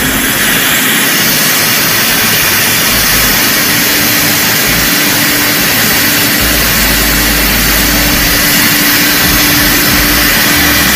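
Cold-steam sterilizer with its vacuum extraction running: a loud, steady rushing noise with a constant hum underneath.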